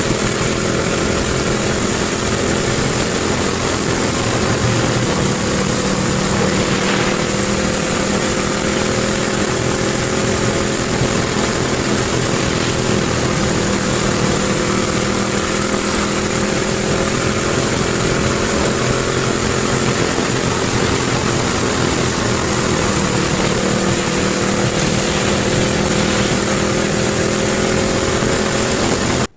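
Dirt wing kart's engine running steadily at racing speed, heard from onboard with wind rushing over the microphone; its pitch dips slightly a couple of times through the turns.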